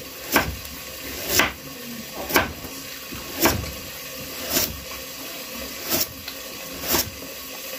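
Kitchen knife slicing carrot into thin strips on a wooden cutting board: a sharp chop of the blade against the board about once a second, seven in all.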